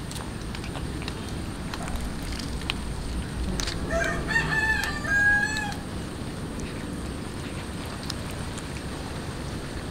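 A rooster crows once, a call about two seconds long in several stepped parts, starting about four seconds in. Small clicks of cats chewing raw fish run alongside.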